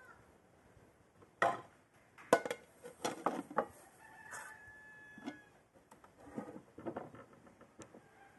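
Sharp clicks and knocks on an aluminium cooking pot as dried plums are dropped into it and its lid is handled: a quick run of loud knocks in the first half, then fainter scattered clicks.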